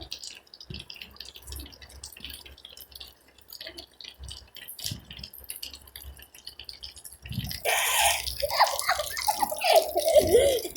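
Raindrops dripping irregularly. About seven seconds in, a louder rushing, splashing noise sets in, with a person's voice mixed in near the end.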